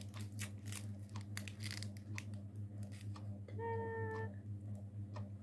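Plastic packaging crinkling and crackling in short, irregular bursts as small packed items are handled, over a steady low hum. About three and a half seconds in there is a short, held vocal tone, like a brief 'mm'.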